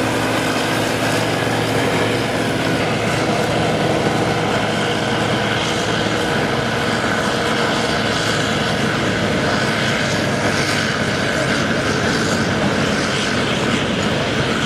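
Combine harvesters running at work in a soybean field: a steady, dense engine drone mixed with machinery noise.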